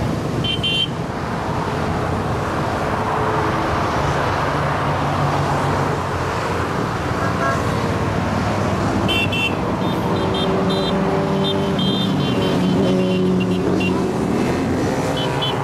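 A steady stream of motorcycles passing on a dual carriageway below, many engines running at once, their tones rising and falling as the bikes go by. Short horn beeps sound about half a second in and then repeatedly from about nine seconds on, riders tooting as they pass.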